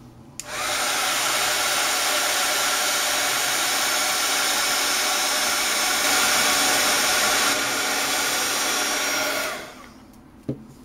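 Handheld embossing heat gun blowing hot air with a steady rushing whir, switched on about half a second in and cut off near the end, melting clear embossing powder on a stamped card.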